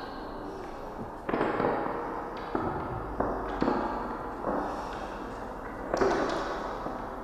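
About six loud, irregularly spaced percussive hits, each dying away with a ringing tail, in the live music score of a staged reading.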